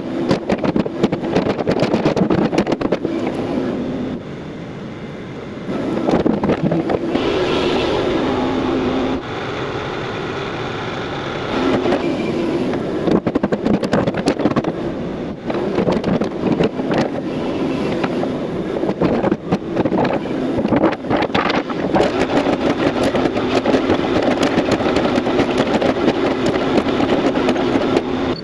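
Excavator's diesel engine working under hydraulic load, rising and falling as the arm and bucket move, with clanks and knocks from the bucket in the dirt. It eases off to a quieter, steadier run twice, about four seconds in and again about nine seconds in.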